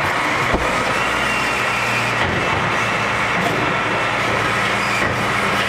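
Refuse collection lorry running close by, loud and steady, with a steady high whine over the engine and a single knock about half a second in.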